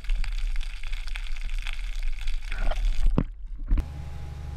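Muffled underwater water noise picked up through a submerged camera housing: a dense low rumble full of clicks and crackles. About three-quarters of the way through it gives way abruptly to a steadier low rumble of wind on the microphone above the water.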